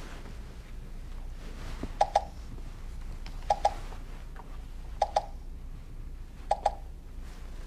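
Smartphone ScripTalk prescription-reader app beeping while held against a prescription label to scan its RFID tag: a short double beep repeating about every second and a half, four times.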